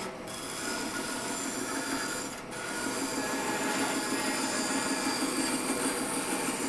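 Bandsaw running and cutting through a wooden block: a steady rasping hum of the blade in the wood, dipping briefly about two and a half seconds in.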